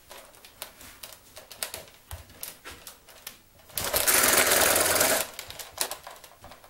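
Nerf Modulus Regulator electric flywheel blaster spinning up and firing a rapid burst of darts, a loud mechanical whirring rattle that lasts about a second and a half and starts almost four seconds in. Light clicks from handling the blaster come before it.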